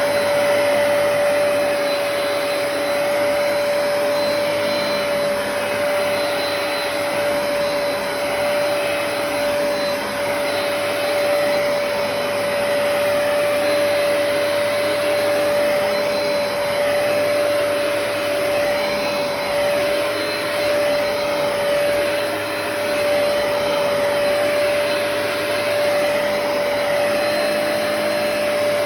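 Hoover PowerDash Pet compact carpet cleaner running: a steady motor whine over an even rushing sound of suction.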